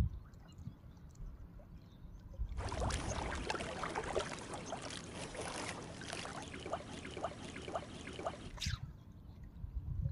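Water lapping and trickling in a dense run of small splashes, starting about two and a half seconds in and stopping sharply near the end, over a faint low rumble.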